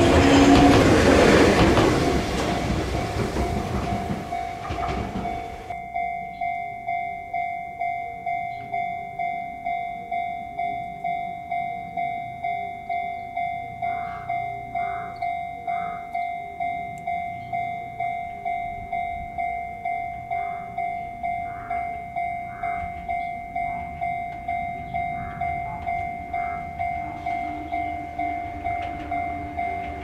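An Enoshima Electric Railway train passes with loud wheel-and-rail noise that fades over the first few seconds. Then, after an abrupt change about six seconds in, a Japanese level-crossing alarm rings its steady electronic "kan-kan" bell, repeating evenly about one and a half times a second.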